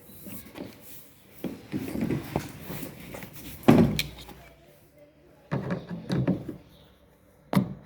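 Irregular knocks and clunks with a sharp thud about three and a half seconds in, like parts or tools being handled and set down.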